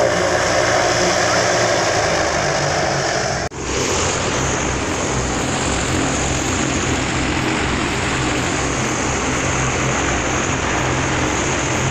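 Zeppelin NT airship's propeller engines running steadily close by, a loud even drone with a low hum. The sound breaks off for a moment about three and a half seconds in, then carries on unchanged.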